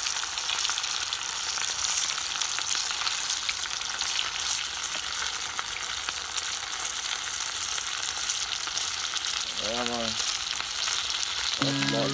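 Food frying in a pan of hot oil over an open fire: a steady sizzle with scattered small crackles.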